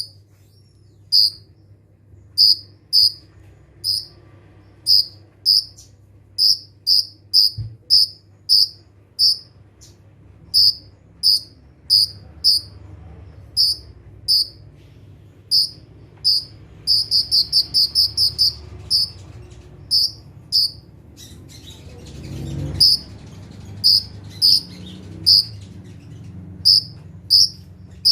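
Kolibri ninja sunbird calling: short, sharp, high chips repeated about twice a second, with a fast run of rapid chips about two-thirds of the way in, over a low steady hum.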